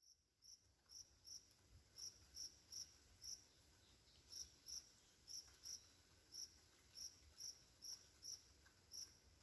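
A cricket chirping: short, high chirps, about two a second at uneven spacing, over a faint steady hiss of light rain.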